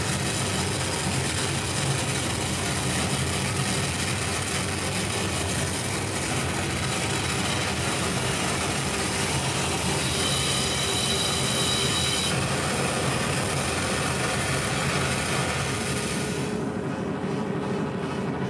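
Harsh noise music from a tabletop rig of effects pedals and electronics: a dense, steady wall of noise over a low drone. About ten seconds in, a piercing high whine cuts in for a couple of seconds, and near the end the highs drop away, leaving a duller rumble.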